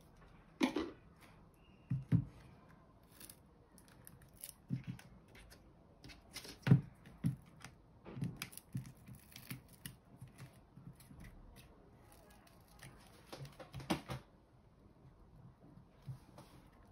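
Small plastic and metal tablet parts being handled and pried with a plastic pry tool on a tabletop: irregular clicks, taps and short scrapes. Sharper knocks come near the start, about two seconds in, and loudest about seven seconds in.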